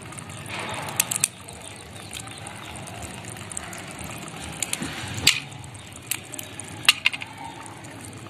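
Shells and legs of small freshwater crabs cracking and snapping as they are broken apart by hand, heard as scattered sharp clicks over a steady background hiss.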